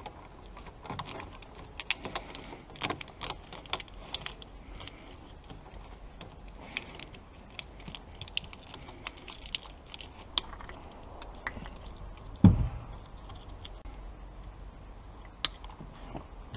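Scattered light clicks and rattles of hands handling wiring and corrugated plastic loom tubing, with one low thump about twelve seconds in.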